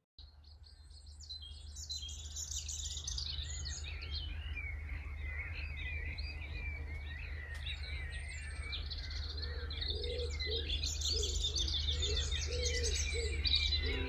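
A chorus of many songbirds chirping and singing together, fading in from silence at the start, over a steady low rumble. A few lower, repeated calls join in about ten seconds in.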